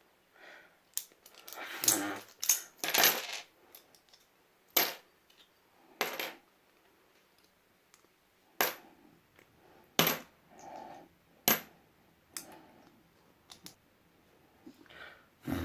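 Sharp metallic clacks, about eight of them spaced out, as metal objects snap onto and are handled against a 550 kg pull clamp magnet, with some handling noise between them.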